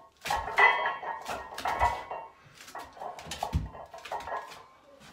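Iron weight plates clanking and rattling on a barbell loaded to 180 kg during a heavy back squat: a run of sharp metallic knocks, some ringing briefly, with two heavy low thumps about two and three and a half seconds in.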